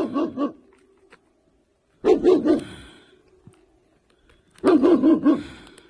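A dog barking in three quick runs of barks, about two and a half seconds apart, at an unseen animal calling in the hills.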